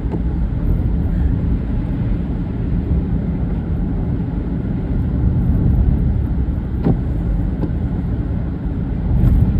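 Car driving at a steady speed on a slush-covered road, heard from inside the cabin: a steady low rumble of engine and tyres. Two faint brief clicks come near the end.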